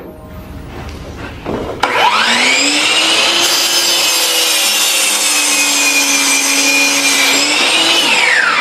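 Hitachi C12FDH 12-inch compound miter saw spinning up about two seconds in with a rising whine. The blade then cuts through a 2x6 pine board, a steady whine with a wide hiss of sawing. Near the end the motor winds down with a falling whine as the trigger is released.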